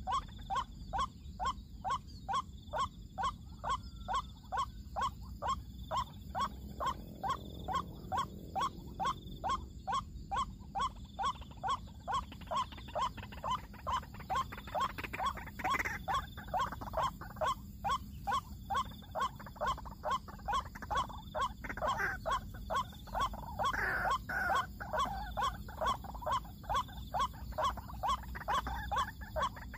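White-breasted waterhen 'kruak' calls repeated in a steady, even rhythm of about two and a half a second. From about halfway through, more irregular, higher calls join in over the rhythm.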